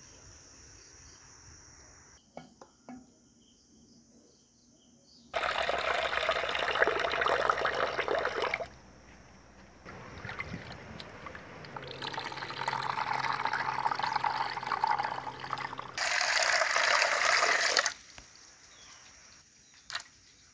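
Water splashing and pouring in a clay pot as ingredients are washed by hand, in three spells of a few seconds each, the last the loudest. Near the end there is one short splash as green chilies drop into the water.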